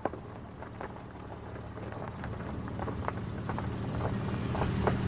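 Footsteps crunching on snowy ground, uneven steps about two a second, over a low steady hum that slowly grows louder.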